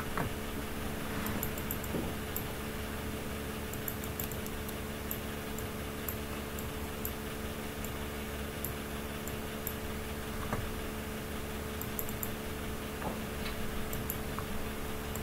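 Steady hum with several fixed tones, under scattered light ticks, typical of a computer mouse being clicked and its wheel scrolled.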